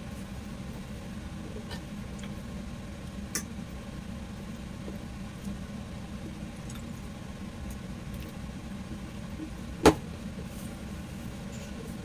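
A fork clinking against a stainless steel bowl as pork chops are turned in beaten egg: a few light taps, then one sharp clink about ten seconds in. Under it runs a steady low hum.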